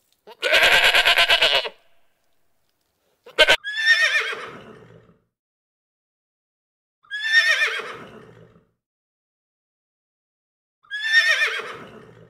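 A goat bleats once, a quavering call, just after the start. Then a horse whinnies three times, a few seconds apart, each call sliding down in pitch and trailing off.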